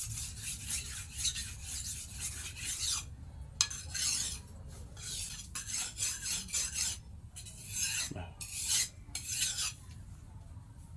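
Hand-forged hunting knife being worked by hand against an abrasive, in repeated scraping back-and-forth strokes. The strokes run close together at first, then come one by one with short gaps and stop shortly before the end.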